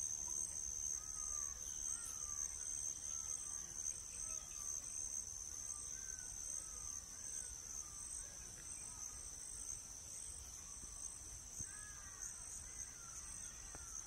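Steady high-pitched drone of a chorus of insects. Fainter, a bird gives short rising-and-falling call notes about once a second.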